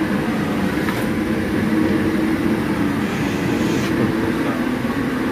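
Heat cannon for stretch-ceiling installation running, a steady loud blowing noise, as it warms the ceiling film. A brief higher hiss joins it about three seconds in.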